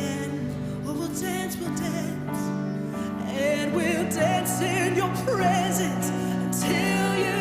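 Live worship music: a band holding slow, sustained chords with a singer's voice over them, wavering with vibrato and growing stronger about halfway through.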